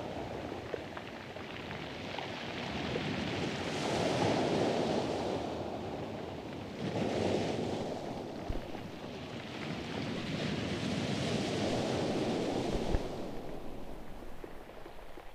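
Wind and water noise on a kayak-mounted camera's microphone, swelling and easing every three to four seconds.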